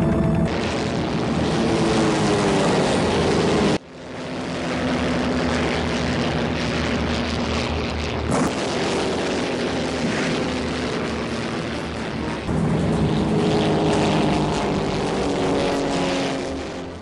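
War-film battle soundtrack dominated by the drone of propeller warplane engines passing overhead, their pitch sliding down and up as the planes go by. The sound changes abruptly about 4 and 12 seconds in, and fades near the end.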